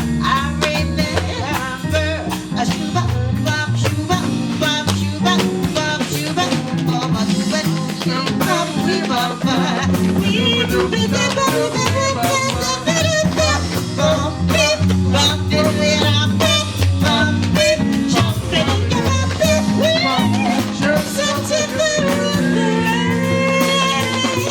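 Band music with guitar, bass and drum kit in a swinging blues-jazz style, with a melody line over it.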